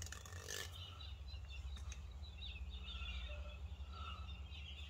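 Quiet background: a low steady hum with faint, scattered high chirps.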